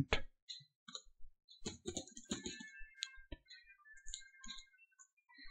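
Computer keyboard typing: quiet, irregular key clicks.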